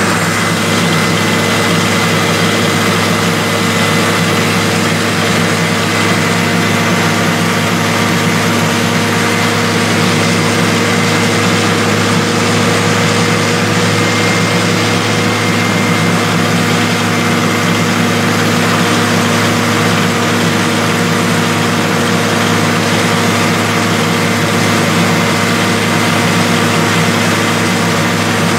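Truck-mounted tube-well drilling rig running steadily: an engine drone with a steady hiss of compressed air blowing water out of the borehole around the drill pipe.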